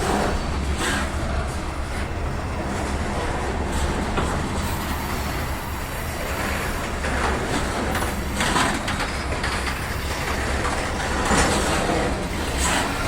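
Freight train cars rolling past: a steady low rumble with irregular wheel clacks and knocks, about half a dozen in all.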